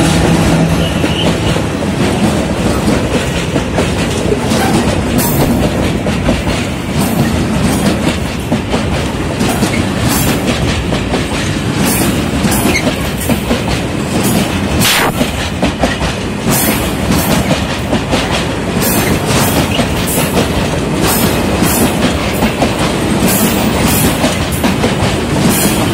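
Train of empty freight flat wagons rolling past as it gets under way behind a diesel locomotive, wheels clacking over the rail joints and running gear rattling in a steady stream of irregular clicks.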